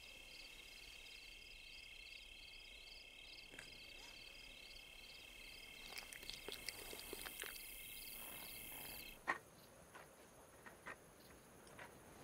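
Faint night chorus of crickets: steady high trilling with a chirp repeating two or three times a second. A few soft clicks come in about six seconds in. The chorus cuts off abruptly with a sharp click about nine seconds in, leaving faint high hissing and small clicks.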